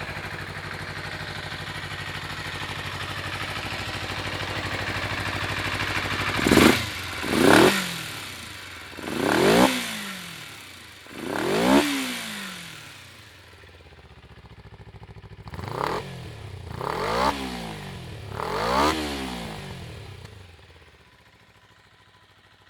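A 1989 Kawasaki Eliminator 250SE motorcycle's parallel-twin engine idling steadily, then revved in seven quick throttle blips, each rising and falling back. It settles and shuts off near the end.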